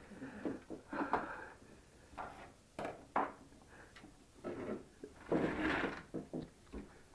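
Scattered knocks, clicks and rustling of a window and its blinds being handled, with a longer rustle about five seconds in.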